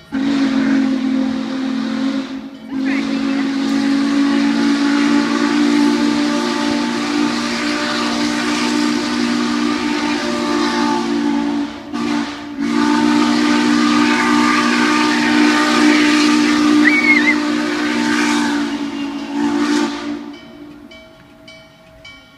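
Norfolk & Western 611, a class J 4-8-4 steam locomotive, blowing its whistle: a short blast, then two long ones, each a loud chord of several low steady notes with steam hissing through it. The last blast tails off near the end.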